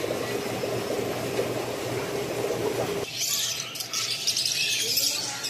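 A steady low hum at first. About three seconds in, it cuts to a flock of caged budgerigars chattering, with many overlapping high chirps.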